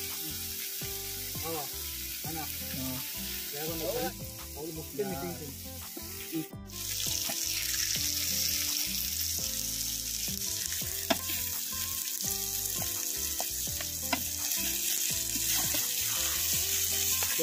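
Masala-coated katla fish pieces frying in oil on a tawa, a steady sizzle that briefly cuts out about six and a half seconds in and comes back louder.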